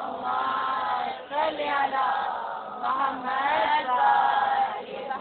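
Women's voices chanting together in long, drawn-out phrases, with short breaks between phrases.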